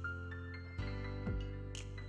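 Soft background music: sustained chords with a new chord struck about a second in and a single note soon after.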